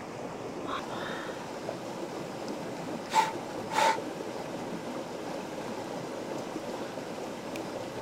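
Shallow river water running over stones, a steady rushing. Two brief sharp sounds stand out a little past three seconds in and again just before four.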